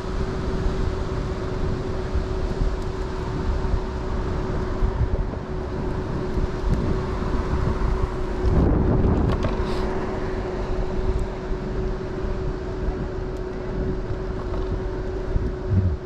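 Riding an electric scooter: wind buffets the microphone, with a steady motor whine held at one pitch. A louder rush of wind comes about nine seconds in.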